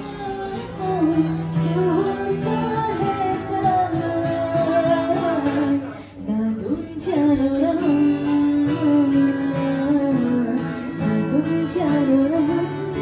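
Live acoustic performance: a woman singing into a microphone, accompanied by a man strumming an acoustic guitar, with a short break in the singing about six seconds in.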